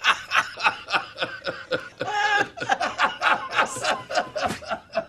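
A man laughing hard: a long run of quick, evenly repeated bursts of laughter, about five a second, with one drawn-out note a little after two seconds in.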